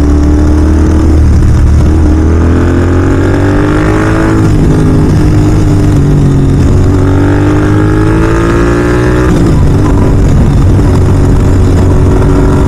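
Royal Enfield Continental GT 650's parallel-twin engine through a Red Rooster aftermarket exhaust, accelerating under way. The pitch climbs twice, about two seconds in and again about halfway through, and each climb drops suddenly at an upshift.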